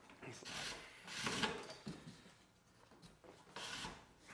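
Spruce root and birchbark rustling and scraping as a root lashing is worked through holes in the bark of a canoe gunwale. It comes in a few short scratchy bursts, the loudest about a second and a half in and another near the end.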